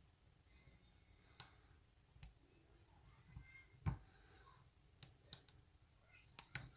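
Faint, irregular clicks and taps of a lock pick working the pins inside a Bi-Lock padlock, the loudest about four seconds in and a quick pair near the end.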